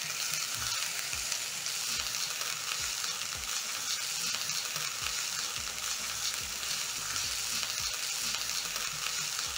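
Diced red onion and garlic sizzling in hot oil in a non-stick frying pan, with a steady hiss, while a silicone spatula stirs them and knocks softly against the pan.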